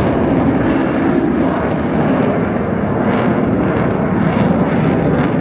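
RAF Eurofighter Typhoon fighter jet flying its display, its twin jet engines making a loud, steady rush of noise.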